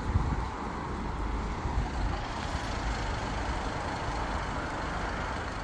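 Steady outdoor road-traffic noise: a low rumble with a hiss over it and no distinct events.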